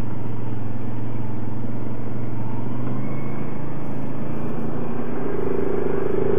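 ATV engine running steadily under way on a trail, its note rising near the end as it speeds up.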